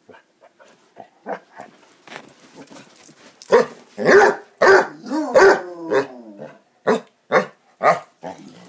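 Basset hounds barking in play. After a few small sounds, a run of loud barks starts about three and a half seconds in, about two a second.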